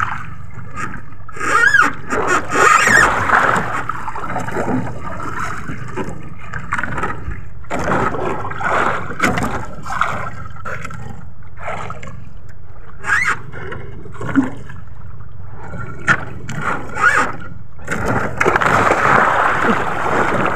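Sea water slapping and gurgling against a small outrigger boat's hull, with scrapes and knocks from a handline being hauled in over the side. Near the end comes a denser splashing at the surface as the hooked skipjack is pulled up to the boat.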